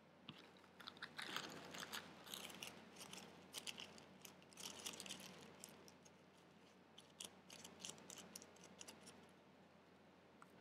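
Faint crinkling and rustling of a paper towel being handled to blot a paintbrush, made up of many small crackly ticks that die away near the end.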